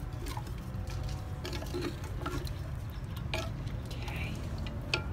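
Wooden spoon stirring chicken pieces in oil in a clay haandi, with scattered clicks and knocks of the spoon against the pot, a sharper knock near the end, over a steady low rumble.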